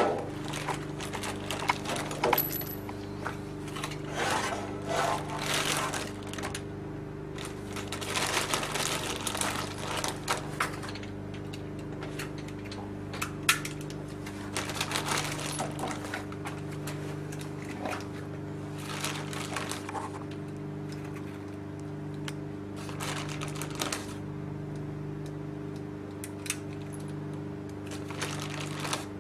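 Scattered metallic clicks and rustling from a gun being handled and readied, over a steady low hum with a tone in it pulsing on and off about once a second.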